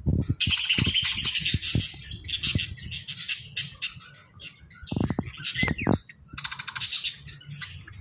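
Budgerigars chirping: repeated bursts of raspy, rapidly pulsed high-pitched chatter, with a few low knocks about five seconds in.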